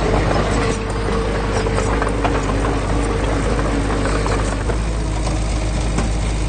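Heavy diesel engine of earth-moving machinery running steadily. A higher whine sits over it for the first few seconds, with scattered light clanks.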